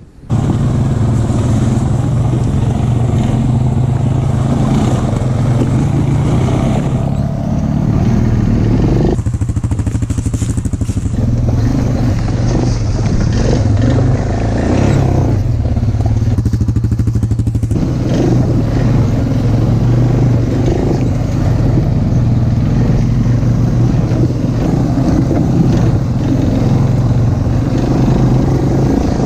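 Suzuki Vinson ATV's single-cylinder four-stroke engine running as the quad is ridden over rough ground, heard close from the rider's seat, with rattle from the bumps. The engine note eases off and picks up again a couple of times, around 9 and 16 seconds in.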